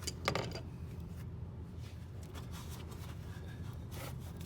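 Hose clamp and coolant hose on a thermostat housing being worked loose by hand. There are two sharp clicks right at the start, then faint rubbing and scraping over a steady low hum.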